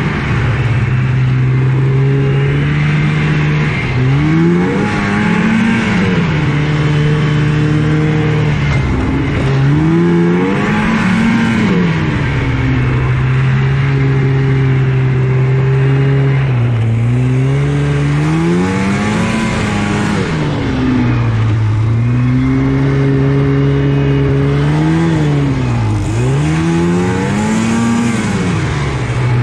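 1983 Yamaha SS 440 snowmobile's two-stroke twin engine running hard, heard from on board the sled. Its pitch holds steady, then rises and falls back several times as the throttle is eased and opened again through the turns.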